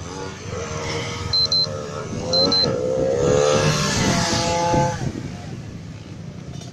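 Drag-race motorcycle engine revving, its pitch wavering and climbing before dropping away near the end. Two short high beeps sound about a second apart.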